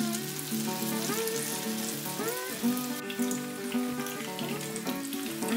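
Breaded eggplant shallow-frying in hot oil in a pan: a steady sizzle and crackle of bubbling oil, under background music.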